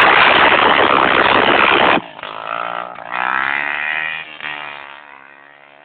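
Two-stroke Yamaha DT dirt bike engine, loud and rough at high revs for about two seconds, then its pitch rises and falls as it fades away.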